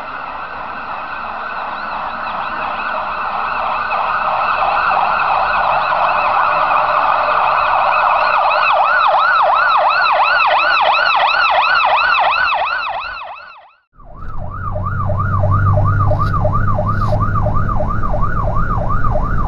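A siren effect under a steady hiss, swelling into a fast warble, fades out about 13 seconds in. After a brief gap, a fire engine's siren sounds in a rapid yelp over the truck's low engine rumble, heard from inside the cab.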